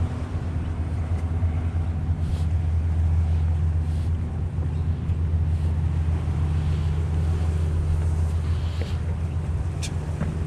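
A steady low engine drone that holds one pitch throughout, with a few faint light taps and a short sharp click near the end.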